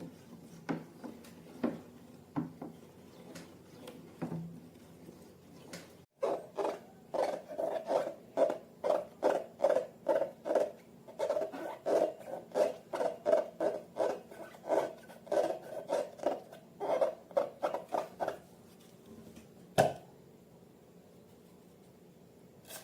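Hands working slime and long balloons: scattered light clicks, then, after a sudden cut about six seconds in, a steady run of short squishy pulses about three a second that stops near the end, followed by one sharp click.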